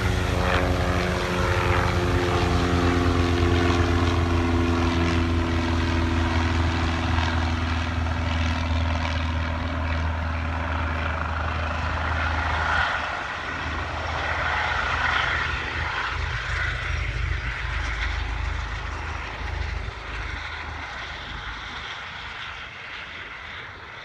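Eurocopter EC135 twin-turbine helicopter flying away low after take-off: the rotor's low beat and the turbine whine slide down in pitch and gradually fade. The low rotor beat drops away about halfway through, leaving a weaker, higher whine.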